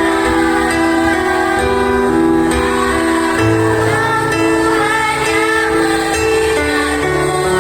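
Music: a slow song with held instrumental notes, with a female voice singing in places.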